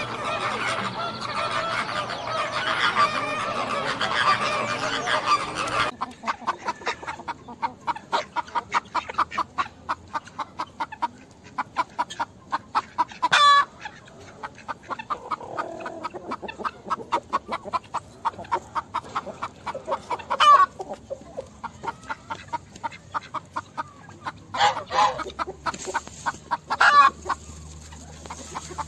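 Chickens clucking: a long run of short, quick clucks, several a second, with a few sharper, louder squawks in between. It follows about six seconds of a dense flock of birds calling over one another.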